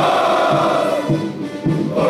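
Ceremonial music: a band playing with a chorus of male voices singing. It dips about a second in and comes back just before the end.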